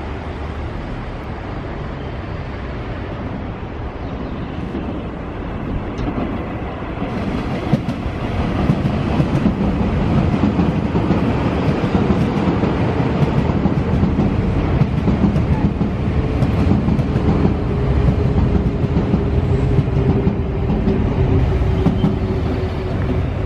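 Nankai 9000 series electric train running past on the track. The rumble of its wheels grows about eight seconds in and stays loud, and a steady hum joins in over the last several seconds.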